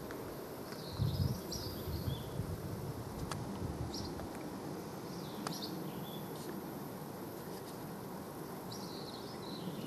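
Outdoor rural ambience: a small bird chirping in short high phrases, four times, over a steady background haze with a low rumble about a second in.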